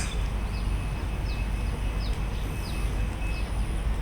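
A bird repeating short, high, falling chirps every half second or so, over a steady low rumble of outdoor background noise.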